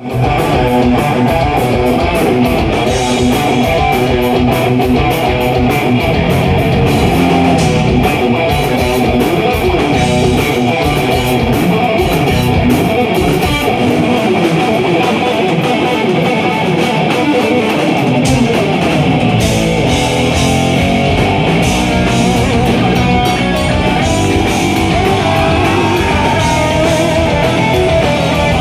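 Live heavy metal band playing loud: a lead electric guitar solo over drums, bass and rhythm guitar.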